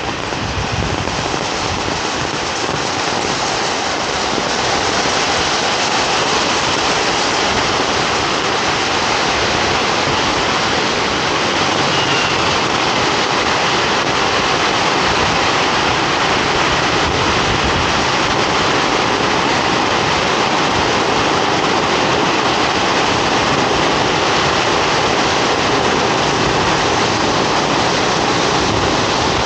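Heavy rain pouring down onto a wet street, a steady loud hiss of rainfall. It builds over the first few seconds and then holds even.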